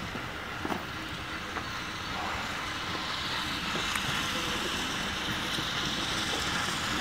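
Steam locomotive hauling coaches slowly towards the listener, a steady rushing noise that grows louder about two seconds in.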